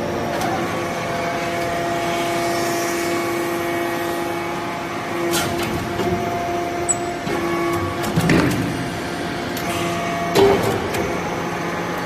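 Hydraulic bronze-chip briquetting press running: its hydraulic pump and motor hum steadily, with a few sharp metallic knocks in the second half as the press cycles.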